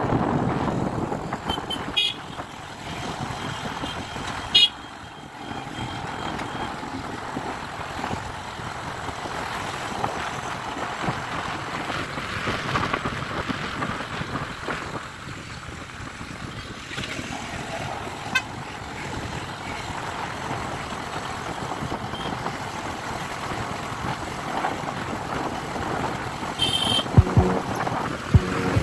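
Steady road and wind noise of riding through town traffic, with short vehicle-horn toots about two seconds in, again near five seconds, and a few more near the end.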